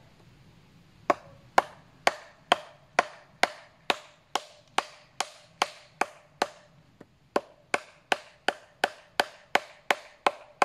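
Wooden mallet striking the top of a hazel peg, driving it into an augered hole in a log as a seat leg. Sharp wooden knocks about two a second start about a second in, with a short pause midway before they pick up again slightly faster.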